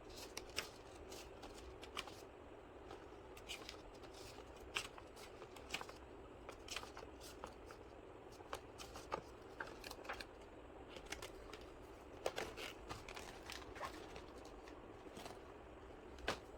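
Stationery being handled during unboxing: faint, irregular small clicks, taps and rustles of pencils, erasers and plastic packaging.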